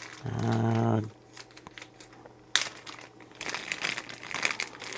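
Crinkling, rustling and small clicks of test probes and their leads being handled. Near the start there is a short, steady, held vocal 'uhh'.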